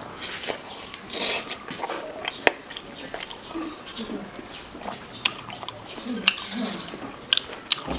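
Wet, sticky chewing and lip-smacking of gelatinous pork leg in gravy eaten by hand, with many sharp smacks throughout.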